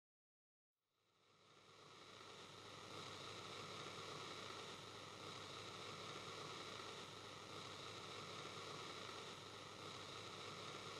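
Faint, steady rushing noise that fades in about a second after digital silence.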